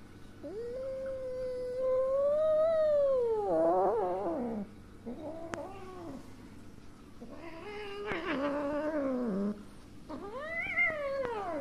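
Calico kitten yowling four times, long drawn-out cries that rise and fall in pitch, the first the longest and turning rough at its end. These are the yowls of an angry, frightened young cat.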